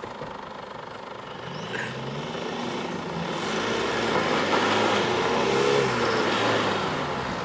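SUV engine revving up under load during a strap recovery, as a Toyota Fortuner reverses to pull a Ford Endeavour stuck in a deep rut. The revs climb from about two seconds in, hold near their peak for a couple of seconds, then ease off near the end.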